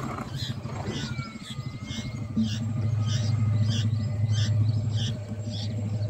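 Bulbul nestlings begging to be fed, a short high chirp repeated evenly about one and a half times a second. Under it runs a low steady hum that grows louder from about two and a half seconds in.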